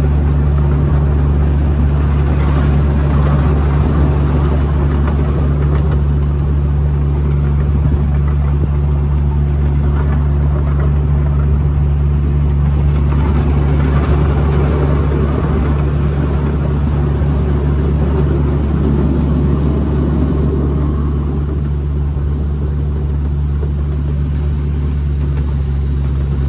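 Steady low engine drone of a slow-moving open ride vehicle, heard from on board, with the rumble of the ride over a gravel path.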